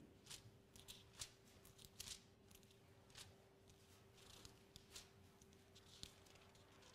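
Faint, scattered rustling of thin paper pages being turned as a passage is looked up in Bibles, over a steady faint hum.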